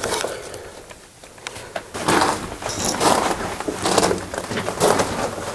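Footsteps crunching on loose gravel, walking at about one step a second, starting about two seconds in.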